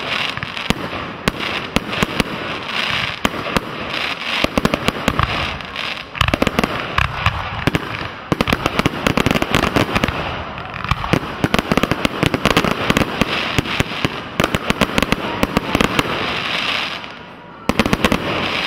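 Fireworks display: a dense, rapid run of aerial shells bursting, bang after overlapping bang, over a continuous crackling hiss. A brief lull near the end is followed by a last cluster of bangs.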